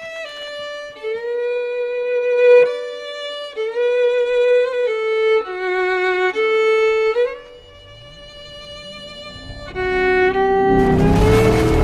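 Violin playing a slow melody, one held note after another, dropping out briefly about two-thirds of the way through. Near the end a low rumble rises under it and swells into a loud rush of noise.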